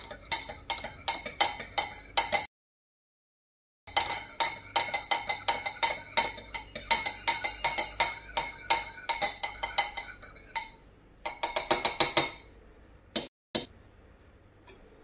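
Metal stirring spoon clinking against the inside of a ceramic coffee mug as coffee is stirred, a rapid, regular clink about three or four times a second. The sound breaks off completely for a moment a couple of seconds in, stops about ten seconds in, and comes back for a short flurry of clinks a second later.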